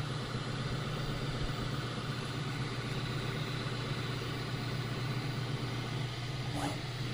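Bambu Lab P1S 3D printer running with a steady low hum and the abnormal mechanical noise it has developed after about three rolls of filament. The owner thinks the noise comes from the right side and suspects something rattling.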